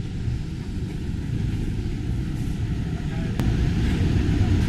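Steady low rumble of industrial laundry machines running, with one sharp click about three and a half seconds in, after which the drone is a little louder.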